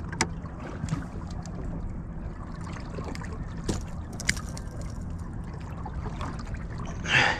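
Steady low hum of a boat's motor running, with scattered light clicks and taps as a quillback is unhooked in a landing net on the deck. A short rushing noise comes near the end.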